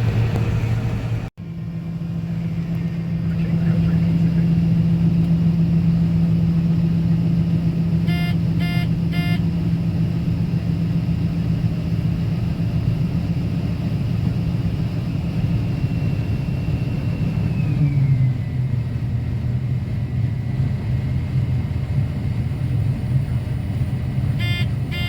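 Combine harvester running steadily while harvesting soybeans, a high whine over the engine hum; both drop slightly in pitch about three-quarters of the way through. Two sets of three short electronic beeps sound, about a third in and near the end.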